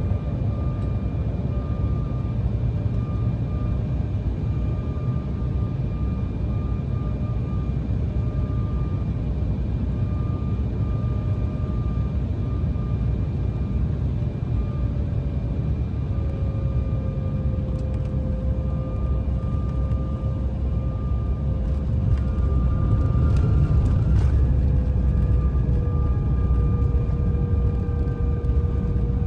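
Cabin noise of an Embraer E175 airliner on descent: a steady rumble of airflow and its twin turbofan engines, with a thin engine tone that drops slightly in pitch about halfway through and again near the end. The noise swells a little for a few seconds late on.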